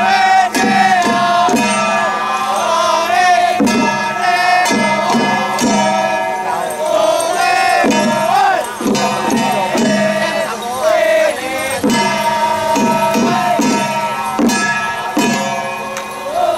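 Taiwanese temple-procession music: a wavering suona melody over steady drum, gong and cymbal strikes, with ringing metal tones and crowd noise.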